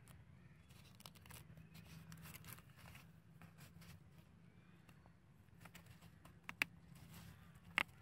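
Small scissors snipping through thin cardboard in short, scattered cuts, with two sharp snaps of the blades late on.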